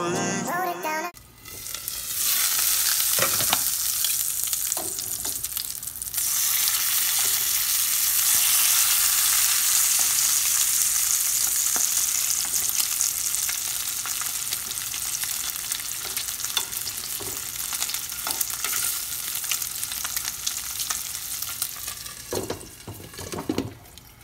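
Bacon strips frying in a pan, a steady sizzle that grows louder about six seconds in. A few faint clicks and knocks run through it.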